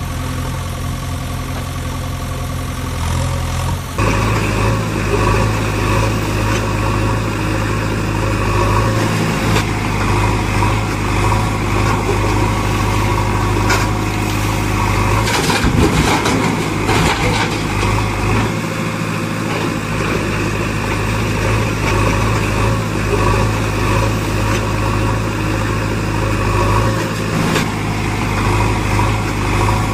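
Heavy engine running steadily, an engine sound effect over unpowered toy machines, its note shifting about four seconds in. A brief clatter comes around the middle.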